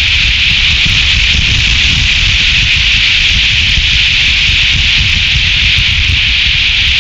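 Strong wind blowing over an outdoor nest-cam microphone and through the surrounding trees: a steady, loud rushing hiss with a low rumble underneath.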